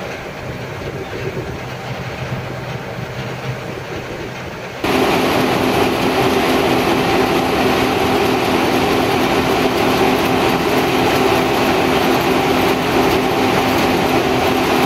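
John Deere 9560 combine running with its unloading auger pouring canola seed into a grain trailer: a steady machine drone with a rushing hiss of falling seed. It gets suddenly louder about five seconds in.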